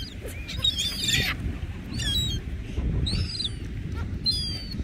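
Gulls calling: four short, high squawks about a second apart, over a steady low rumble.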